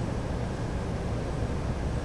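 Room tone: a steady low hum with no distinct events.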